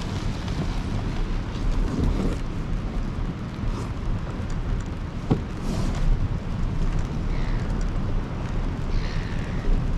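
Wind buffeting a kayak-mounted microphone over a low rumble as a loaded fishing kayak is hauled across the beach, with a few rattles and knocks, the sharpest about five seconds in.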